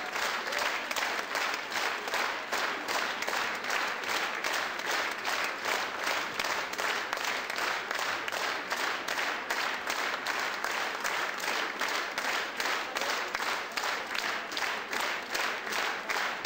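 Audience applauding, clapping together in a steady rhythm of about two and a half claps a second.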